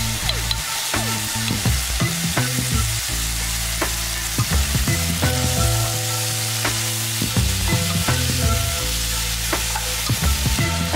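Beef brisket and bean sprouts sizzling in a hot frying pan while being stir-fried with two wooden spatulas, which knock and scrape against the pan many times.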